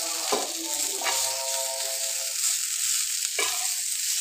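Beef tikka pieces sizzling in ghee on a flat tawa griddle, the gas just switched off once the frying is done. Metal tongs scrape against the griddle a few times as the pieces are turned.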